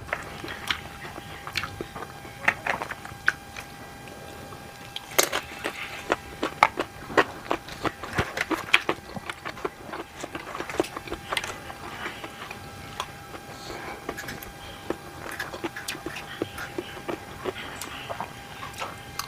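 Eating sounds: plastic forks clicking and scraping in a plastic takeout tray, with chewing, as many short irregular clicks and smacks.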